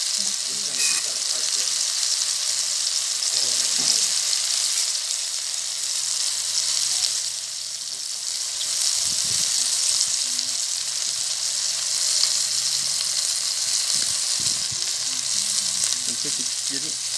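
Beef steaks sizzling steadily as they fry in hot oil in a stainless steel pan, easing off slightly about halfway through.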